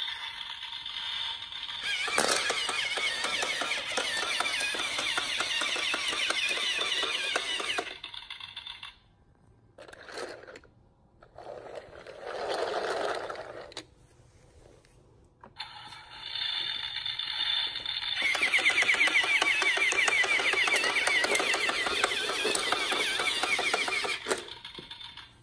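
Battery-powered toy combine harvester running, its small motor whining and its plastic gears clicking rapidly, in two long runs of several seconds each. In the gap between them, while the toy is stopped, come shorter, duller noises.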